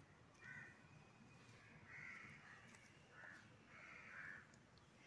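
A crow cawing faintly: four short, harsh caws at uneven intervals.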